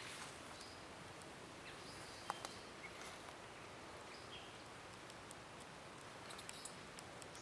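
Faint outdoor garden ambience: a steady hiss of background noise with scattered short bird chirps and one faint click about two seconds in.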